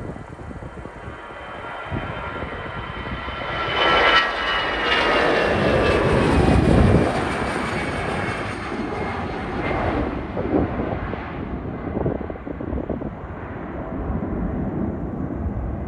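Airbus A320-214's CFM56 turbofan engines at takeoff thrust as the airliner rolls and lifts off, passing by. Several engine whines drop in pitch as it goes past, the sound is loudest about four to seven seconds in, then fades slowly as it climbs away.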